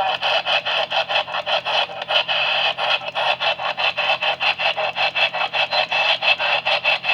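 A rapid, even pulsing noise, about six pulses a second, on the weather radio's received audio, with no voice in it.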